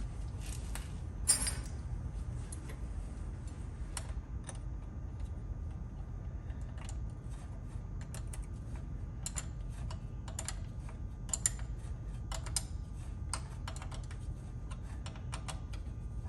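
Light, irregular metallic clicks and taps of a hand wrench working on a battery cable terminal clamp, tightening it onto the post, over a low steady background rumble.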